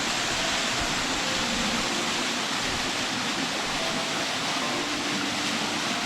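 Waterfall pouring steadily into its plunge pool, an even, unbroken rushing of water.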